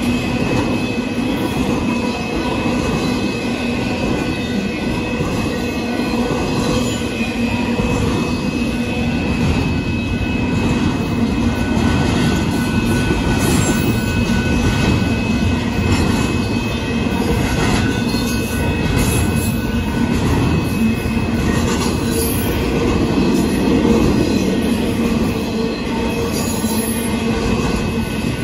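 Union Pacific double-stack intermodal container cars rolling past at speed: a continuous rumble and clatter of steel wheels on the rails, with thin steady tones riding over it.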